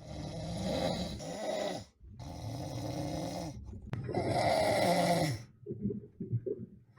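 A person snoring heavily: three long snores of about a second and a half each, then shorter, choppy breath sounds near the end.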